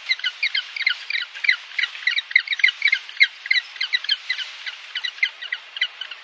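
Penguins calling: a fast, uneven run of short, high chirps, about five a second.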